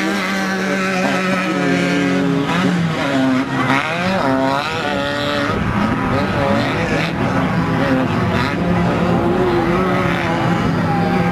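Off-road race car engine running hard. Its pitch stays steady for long stretches, with rising and falling revs around the middle.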